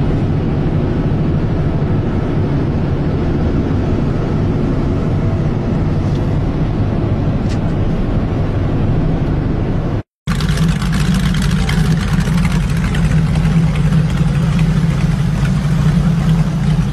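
A motorcycle riding along, its engine and wind noise steady. After a sudden cut about ten seconds in, a large multi-cylinder motorcycle engine with a bank of carburettors idling steadily with a low hum.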